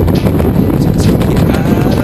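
Steady wind rushing over the microphone of a body-mounted camera under a parachute canopy.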